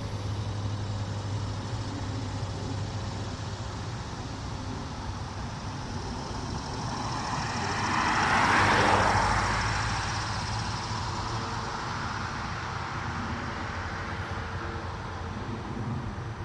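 A road vehicle passing by, its noise rising and fading over about four seconds, loudest around eight to nine seconds in. A steady low hum lies under it throughout.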